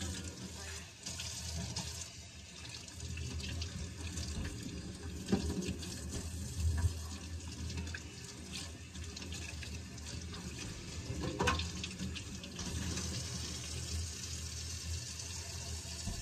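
Kitchen faucet running, its stream splashing through wet hair into a sink as the hair is rinsed by hand, with a few short knocks.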